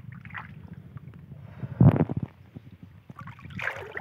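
Shallow muddy water sloshing and splashing as a hand gropes inside a bamboo polo fish trap and draws out a fish, with a loud sudden splash or thump about two seconds in and another splash near the end, over a low rumble.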